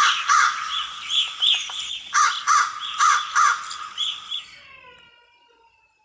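Crow cawing: a run of repeated caws, about two a second, that dies away about four and a half seconds in.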